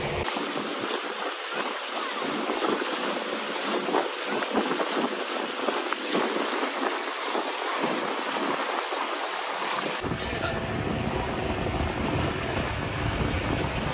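Water rushing and splashing past a moving boat's hull and outrigger float, with wind. About ten seconds in a deeper rumble joins.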